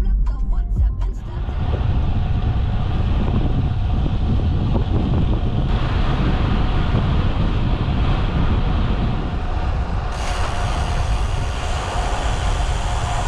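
Riding noise from a road bike: a steady rush of wind over the microphone and rolling tyre rumble, changing character about six and ten seconds in. A short tail of music fades out in the first second.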